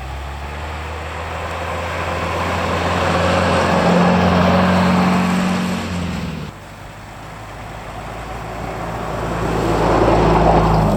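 Car engine running at low speed with a rushing noise of travel over it, swelling in level, dropping suddenly about six and a half seconds in, then building up again.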